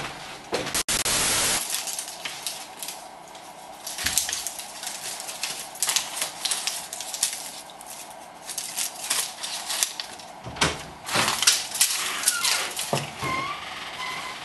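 Film strip being handled: dense, irregular crackling and rustling, with a short burst of hiss about a second in and a few brief whistling glides near the end.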